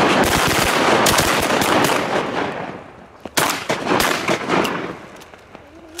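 A volley of shotgun fire from several hunters, many shots overlapping in quick succession for the first two and a half seconds. A few more shots follow between about three and a half and four and a half seconds in.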